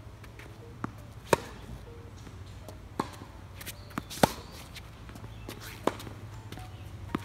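Tennis rally: sharp pops of racket strings striking the ball, with lighter thuds of the ball bouncing on the hard court between them. The loudest hits come about a second in and about four seconds in.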